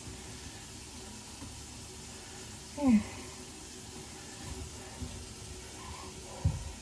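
Tap water running steadily into a bathroom sink and down its newly reconnected drain, run to check the joint for leaks. About halfway through there is a short falling vocal murmur, and near the end a single low thump.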